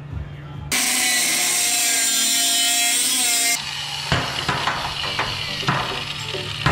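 Angle grinder with a cutoff wheel cutting through an aluminum strip for about three seconds, starting suddenly under a second in and stopping abruptly, with background music before and after.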